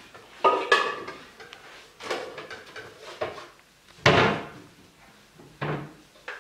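About half a dozen sharp knocks and clatters of kitchen cupboards and utensils being handled, the loudest a bang about four seconds in.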